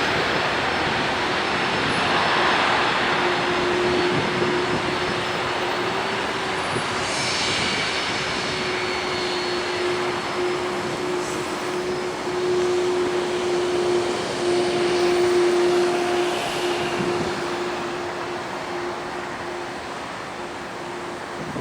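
Jet engines of a FedEx Airbus A300 freighter on its landing approach: a steady loud rush with a constant hum running through it, slowly fading away over the last few seconds.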